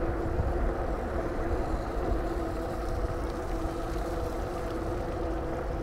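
A vehicle engine running steadily: an even hum over a constant low rumble.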